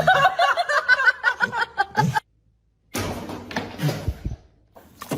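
A person laughing in rapid pitched bursts, cut off suddenly about two seconds in. After a short gap of silence, a noisy stretch with voices starts.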